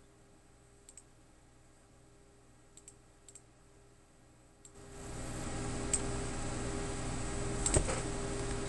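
Computer mouse clicks, a few faint ones and then a louder one near the end. About five seconds in, the computer microphone is turned back up from zero, and its background noise rises to a steady hum and hiss.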